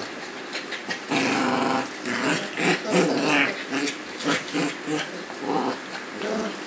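Two Cavalier King Charles Spaniel puppies play-fighting, growling in short, irregular bursts: rough play, not real aggression.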